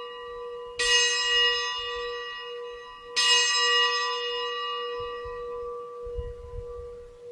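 A bell struck twice, a couple of seconds apart, each stroke ringing on and slowly dying away. It is the consecration bell, rung at the elevation of the chalice.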